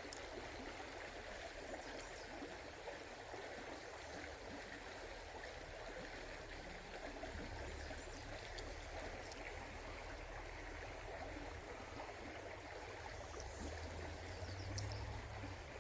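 Creek water running steadily and faintly, with a few light clicks scattered through.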